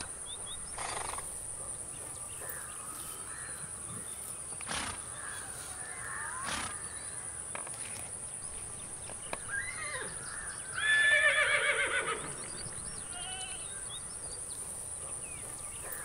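Outdoor paddock ambience around a pony eating hay: scattered short bird-like chirps, a steady high-pitched whine and a few soft knocks. About eleven seconds in comes a louder wavering animal call lasting just over a second.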